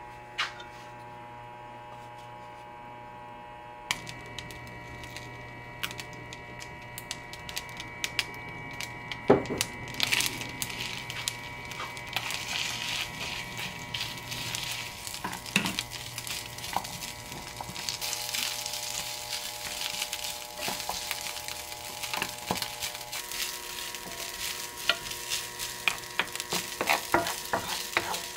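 Cooked rice stir-frying with gochujang in a nonstick frying pan: sizzling, with wooden spatulas scraping and tapping against the pan. The sizzle is faint at first and grows louder from about ten seconds in, over a steady hum.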